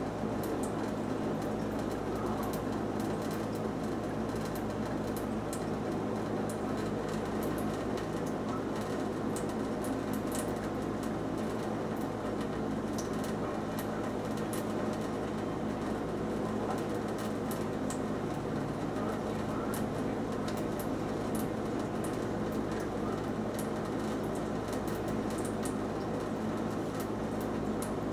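Thin stream of tap water trickling steadily from a kitchen faucet into a stainless steel sink, with small splashing ticks over a steady low hum.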